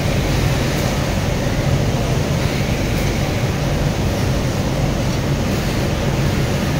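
Steady background noise of a garment factory floor: a constant low hum and rumble from machinery and ventilation, with no clear stitching rhythm.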